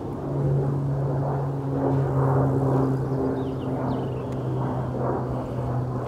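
Small engine of a Central Machinery backhoe running steadily, an even unchanging hum, with a few faint bird chirps over it.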